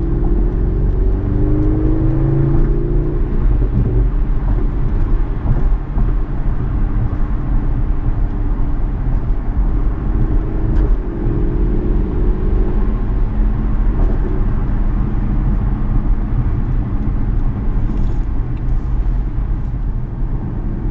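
Audi S6's 4.0-litre twin-turbo V8, on an AWE Touring exhaust with an APR Stage 1 tune and stock downpipes, heard from inside the cabin while driving, over steady road and tyre rumble. The engine note rises under acceleration at the start and again about ten seconds in.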